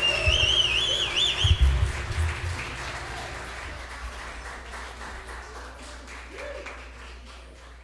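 Audience applauding after a song, with a high wavering whistle over the clapping during the first couple of seconds; the applause then fades away steadily.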